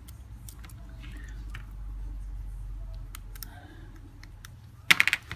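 Scattered small clicks and taps as flex cable connectors are prised off an iPhone 4S logic board, over a low steady hum.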